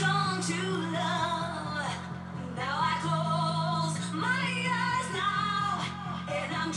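A pop-dance record playing from a vinyl turntable through a DJ mixer: a woman singing over long held bass notes that change every second or so.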